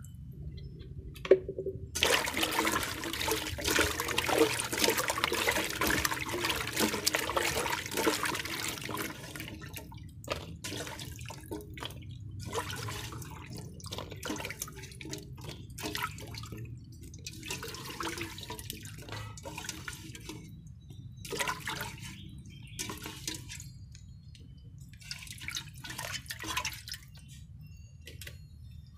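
Water splashing and sloshing in a metal pot as red shallots are washed by hand: steady pouring and swirling for the first several seconds, then short separate splashes and drips as they are lifted out in a plastic colander. One sharp knock about a second in.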